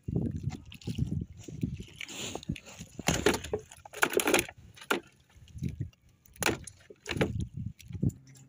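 Handling noise aboard a small fishing boat: a woven plastic sack rustling and shifting, with irregular bumps and knocks and several short, sharp rustles.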